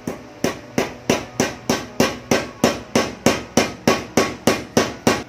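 Hammer blows on the end of a power-tool armature shaft: about seventeen sharp, even metallic knocks, roughly three a second, each ringing briefly. They are tapping a bearing onto the new armature's shaft.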